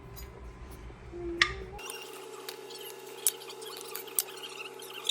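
A spoon clinking a few separate times against a bowl while flour is spooned in, over a steady electrical hum.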